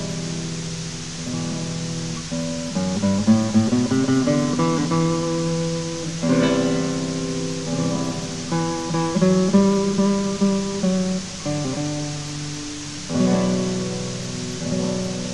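Guitar music, picked notes and chords, over a steady hiss.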